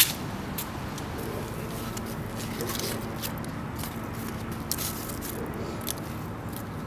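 Dry fallen leaves crackling and scraping as a hand brushes them off a wooden bench seat, along with footsteps on a leaf-strewn path: a string of short, irregular crackles over steady background noise, with a sharp click right at the start.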